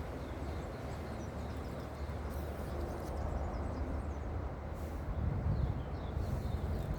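Steady outdoor background noise, a low rumble that swells a little in the second half, with faint bird chirps.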